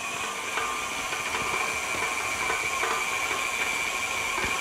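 KitchenAid Artisan stand mixer running at a steady speed with a high motor whine, its beater working a crumbly pastry dough in a glass bowl.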